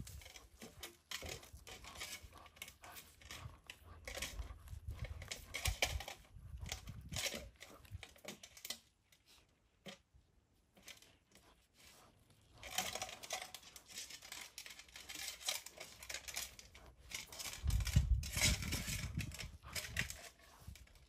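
Cheetah cub gnawing on a raw meat bone: wet tearing and crunching that stops for a few seconds about halfway through, then resumes. A low rumble joins the chewing near the end.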